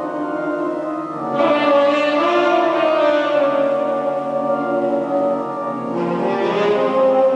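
Organ playing sustained full chords, with a change of chord about a second and a half in and another near six seconds.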